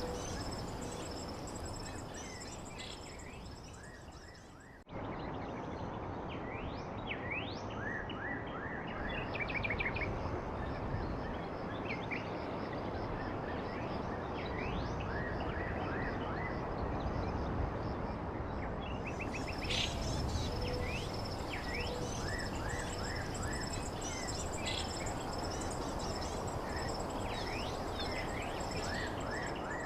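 Outdoor ambience: steady background noise with repeated short bird chirps and a steady high-pitched tone. The sound fades and then cuts off abruptly about five seconds in, where a similar ambience resumes.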